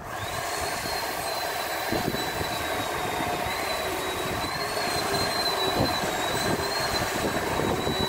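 Chainsaw running at high revs as it cuts into the top of a spruce trunk. It comes in suddenly and holds as a steady high whine that wavers slightly in pitch.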